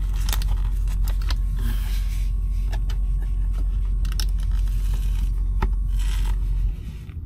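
A steady low rumble inside a truck cab with scattered clicks and scrapes of handling; the rumble cuts off suddenly near the end.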